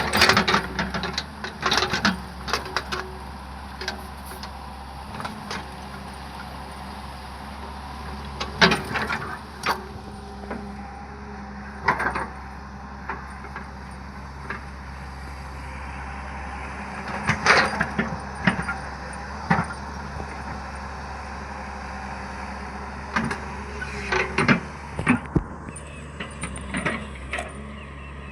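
Hyundai hydraulic excavator's diesel engine running steadily under load, with sharp clanks and knocks from the machine's work, a few seconds apart.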